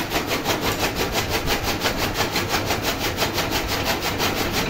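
Motor-driven chaff cutter running steadily, its blades chopping fodder in a fast, even rhythm of about seven or eight strokes a second.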